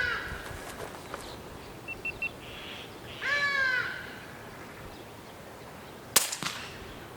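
A single suppressed shot from a Daystate Alpha Wolf .22 PCP air rifle, a sharp crack about six seconds in with a fainter tap just after. Before it, an animal or bird gives a drawn-out falling call about three seconds in.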